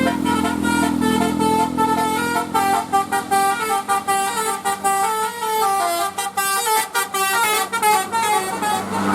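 Bus telolet horn, the multi-tone musical air horn of Indonesian buses, playing a tune. Slower held notes give way, about two and a half seconds in, to a fast run of short notes stepping up and down in pitch, which stops near the end.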